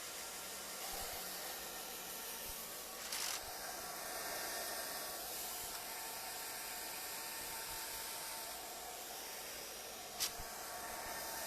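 Hair dryer blowing steadily, drying a freshly brushed coat of paint. A short burst of sound about three seconds in and a sharp click near the end.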